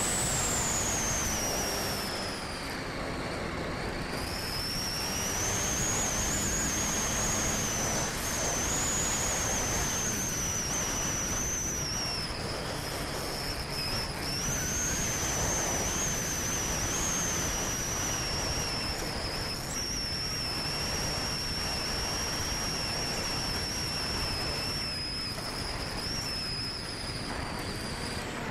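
Electric motor and propeller of a Volantex Ranger 1600 FPV plane whining over steady rushing wind noise. The whine drops in pitch over the first few seconds, then holds nearly steady with small wavers as the plane comes in on its landing approach.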